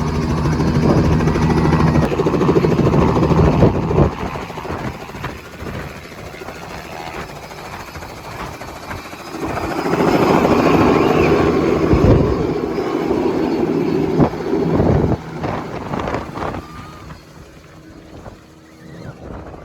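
Helicopter running close by, its rotor and engine noise swelling and fading: loud in the first few seconds, loud again from about ten to twelve seconds in, then dying down toward the end.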